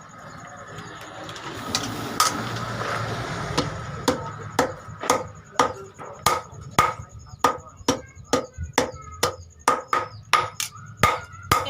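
Hammer blows on steel, about two sharp ringing strikes a second, starting about four seconds in, as a blade is forged from a chainsaw guide bar. Before the hammering starts there is a steady rushing noise.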